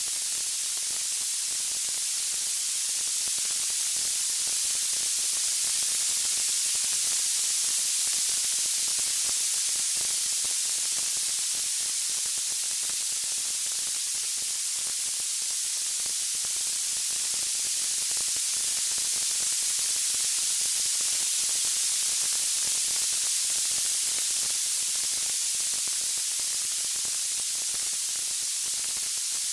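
Steady high-pitched hiss of white noise, slowly swelling and easing about every thirteen seconds.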